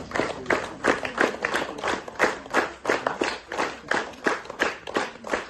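A crowd clapping together in a steady rhythm, about three claps a second; the sound cuts off abruptly at the very end.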